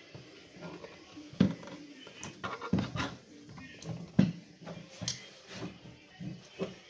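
Plastic gear housing of an Interskol PTs-16/2000T electric chainsaw being pulled apart by hand. Its parts give irregular knocks and clatters, about eight in all, the loudest about a second and a half in and again about four seconds in.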